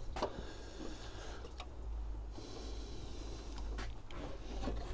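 Engine coolant running out of a disconnected hose and spattering below, a faint, even trickle with a few small clicks.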